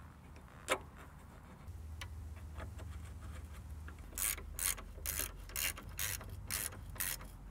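Hand ratchet clicking as it runs in a 12 mm bolt, in a quick even run of about three clicks a second starting about four seconds in.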